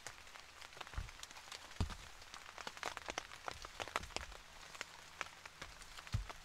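Rain falling on the tent fabric, a dense, irregular patter of sharp drops, with a few dull knocks of a knife cutting through bell pepper onto the board, about a second in, near two seconds and near the end.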